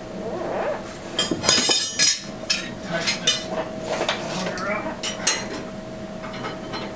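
Metal hand tools and motorcycle parts clinking and clattering in irregular knocks during wheel work, over a faint steady hum.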